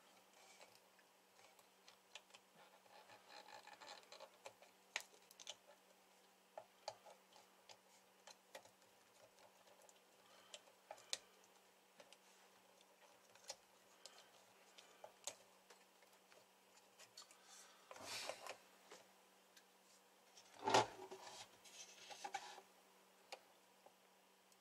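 Faint, scattered clicks and taps of a meter test probe and fingertips on the transistors and parts of an amplifier circuit board, over a faint steady hum. About 21 seconds in there is a louder bump and rustle as the amplifier chassis is handled and turned on its side.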